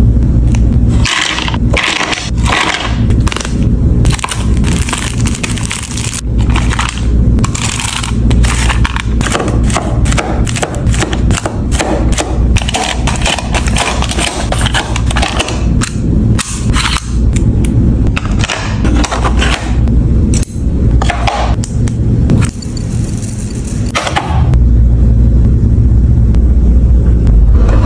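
Rapid clatter of small stationery items being handled and set into wooden drawer organizer bins: dozens of sharp clicks and knocks from metal clips and plastic mint tins. A steady low hum runs underneath and grows louder near the end.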